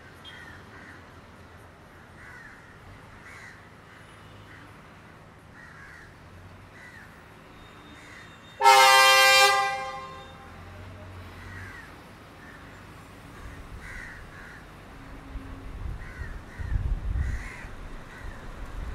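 Class S10 diesel multiple unit's horn sounding one blast of about a second and a half as the train departs, with crows cawing throughout. Near the end a low rumble rises as the train pulls away.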